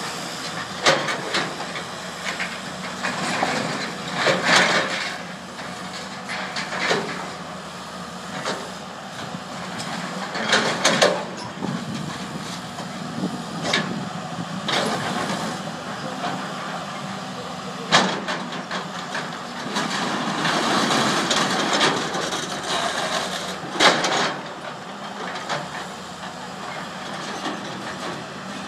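Hydraulic excavator's engine running steadily as its grapple works a pile of demolition debris, with scattered sharp clanks and crashes of metal and rubble every few seconds.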